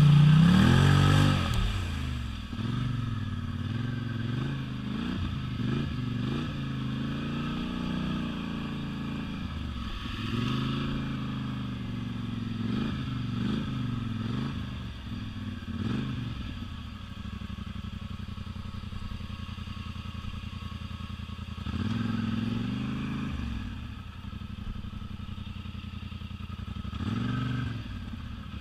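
Polaris Sportsman 1000 ATV's twin-cylinder engine under throttle, revving up and down again and again as it is ridden, loudest in the first couple of seconds. It settles to a steady lower note for a few seconds past the middle, then revs up twice more near the end.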